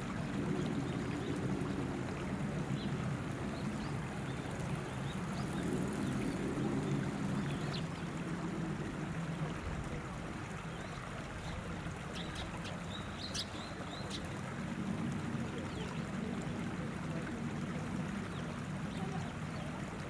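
Shallow river water running over stones, a steady low rush, with a few faint high ticks a little past the middle.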